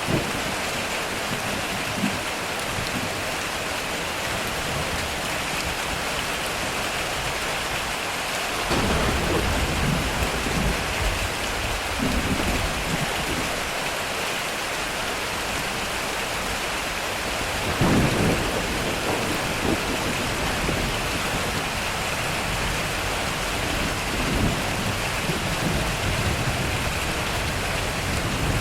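Heavy rain drumming steadily on a metal roof, with thunder rolling in three times: a long rumble about a third of the way in, a sharper, louder clap a little past the middle, and a softer rumble near the end.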